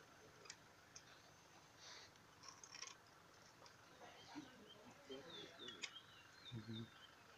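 Quiet background with faint bird chirps: quick runs of short, falling high chirps in the second half, along with a few light clicks.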